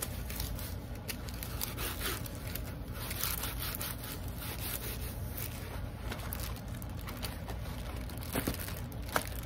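Crinkling and rustling of a rolled diamond-painting canvas being handled, unrolled and smoothed flat by hand to get the crinkles out. A couple of sharper crackles come near the end.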